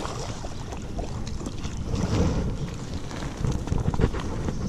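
A hooked bass splashing and thrashing in shallow water at the bank as it is hauled in and grabbed by hand, with louder splashes about two seconds in and again near the end. Wind buffets the microphone throughout.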